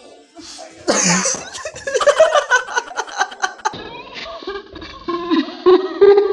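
People laughing: a loud breathy burst about a second in, then quick giggling pulses, giving way to laughing voices.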